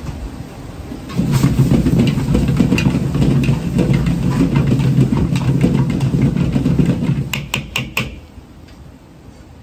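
Gas wok burner running with a loud, steady low hum from about a second in, while a metal ladle stirs and scrapes scrambled eggs and cherry tomatoes around the wok. Near the end comes a quick run of ladle clanks on the wok, and then the burner noise drops away.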